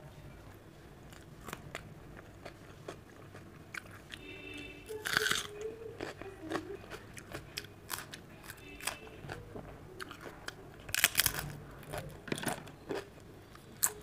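Close-miked crisp crunching bites and chewing of raw cucumber slices, in a string of short crunches with the loudest about five and eleven seconds in.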